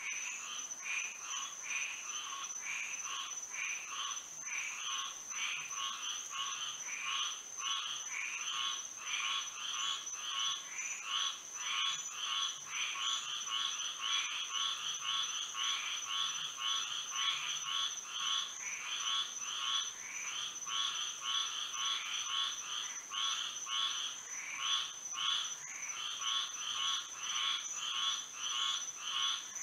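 Chorus of many frogs calling, short pulsed calls repeating and overlapping continuously, over a steady high-pitched trill.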